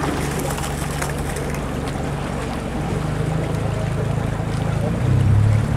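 Outboard motor of a coaching launch running steadily, a low hum under wind noise on the microphone. Music starts near the end.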